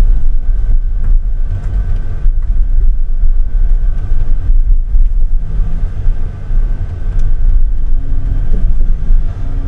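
Timber truck's engine and truck-mounted loader crane hydraulics running while the grapple lifts logs onto the load: a loud, steady low rumble heard from the crane cab.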